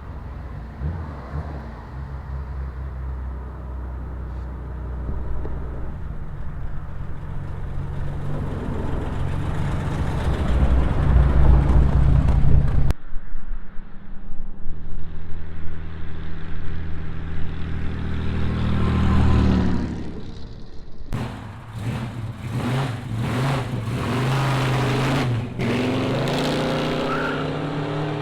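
Hot rod engines with loud exhaust passing by in a run of separate clips. A deep exhaust rumble swells for about twelve seconds and cuts off abruptly, a second car builds up and fades, and near the end an engine revs with a rising pitch and sharp exhaust pops.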